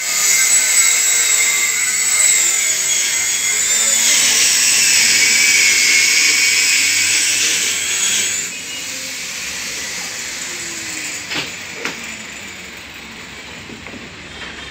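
A high-pitched power tool whining, its pitch wavering and dipping, until it stops about eight and a half seconds in. Lower workshop noise follows, with two brief knocks.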